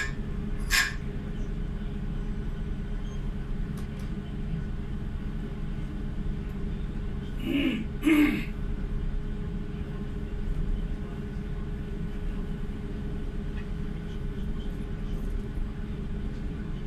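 Steady low hum of a car ferry's engines and onboard machinery while under way, heard from high on the ship. Short vocal sounds come in about a second in and again around eight seconds.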